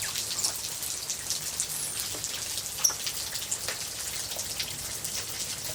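Steady rain falling, with scattered drops ticking and dripping close by. Two brief high chirps, about two and three seconds in.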